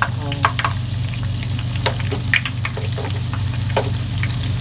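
Battered bola-bola balls deep-frying in a pot of hot oil, with many quick irregular crackles and pops of spitting oil over a steady low hum.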